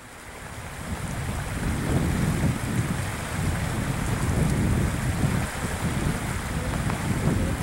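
Wind buffeting the microphone over the steady rush of a fast-flowing river, swelling up over the first second or two.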